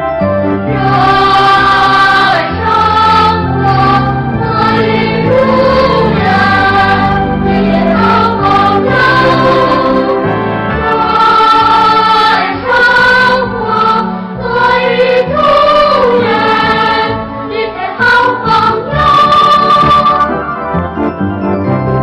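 A cartoon's theme song: voices singing together in long held notes over an instrumental backing.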